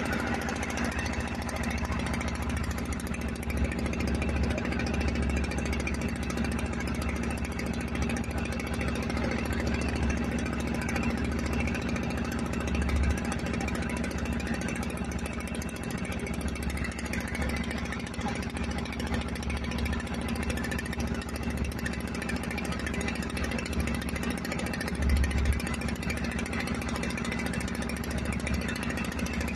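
Small fishing boat's engine running steadily under way, a constant even drone, with a couple of brief low thumps, one about halfway and one near the end.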